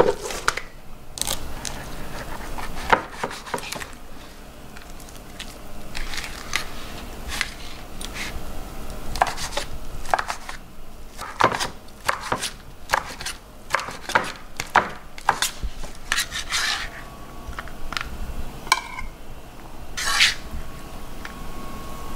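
Chef's knife chopping a thin egg omelette into strips on a cutting board: irregular sharp knocks of the blade striking the board.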